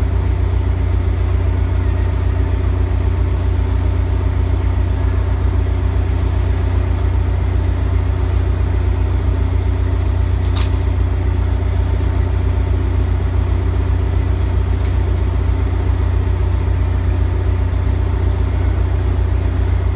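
Caltrain EMD F40PH diesel-electric locomotive's engine running steadily while the train stands at the platform: an even, deep drone with a few steady tones above it.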